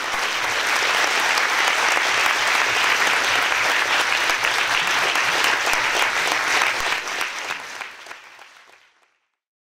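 Audience applauding at the close of a lecture, a steady spread of many hands clapping that fades out over the last few seconds.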